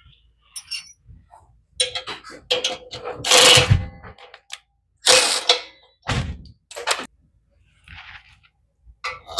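Metal tools and mini-bike parts being handled: an irregular series of clinks, knocks and short rattles, with the loudest clattering in the middle.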